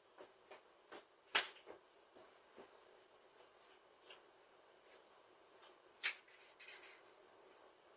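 Faint scattered clicks and knocks, the clearest about a second and a half in and again about six seconds in, over the steady hiss of a doorbell camera's microphone.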